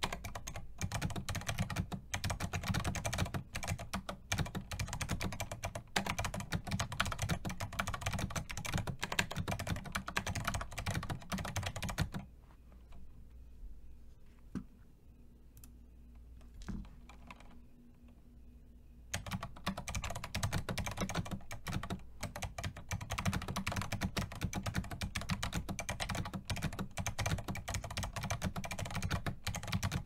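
Fast typing on a beige full-size mechanical keyboard, a dense stream of keystrokes. About twelve seconds in it stops for roughly seven seconds, with only a couple of single clicks, then rapid typing resumes.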